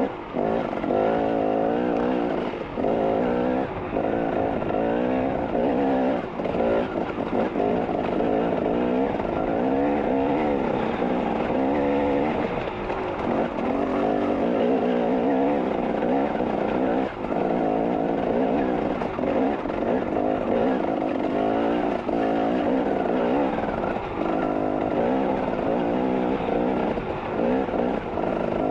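Dirt bike engine revving up and down without a break, its pitch climbing and falling as the throttle opens and closes, with brief dips in level now and then.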